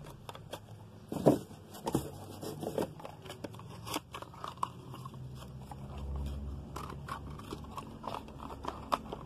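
Plastic wrapping and cardboard crackling and rustling as products are handled in a shipping box, in irregular clicks with a sharper snap about a second in.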